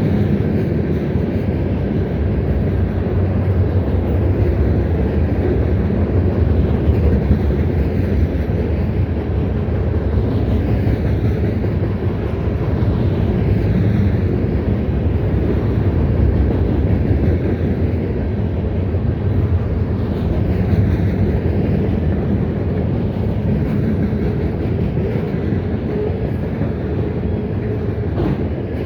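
CSX freight train rolling past on the rails, a steady, loud rumble of wheels and railcars.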